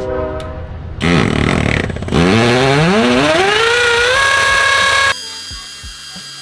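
Cordless drill boring into a stucco wall: a rough grinding start, then the motor's pitch climbs for about two seconds, holds at full speed, and stops suddenly about five seconds in.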